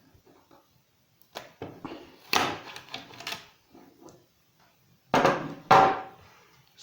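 Knocks and clatter of hard objects being handled: a single knock, then a short run of clatter, then two loud knocks about five seconds in.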